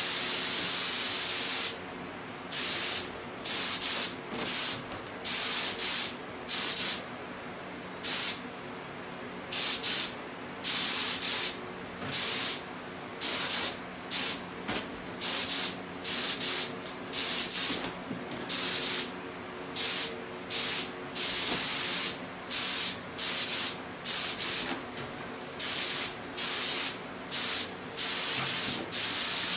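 Gravity-feed air spray gun hissing in many short bursts as the trigger is pulled and released again and again while spraying paint; the first burst is the longest, about two seconds.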